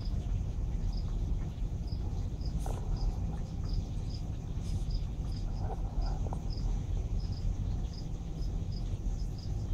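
Reef aquarium's circulation pumps and moving water running with a steady low hum and rush. Over it comes a faint, high, short chirp that repeats irregularly, about twice a second.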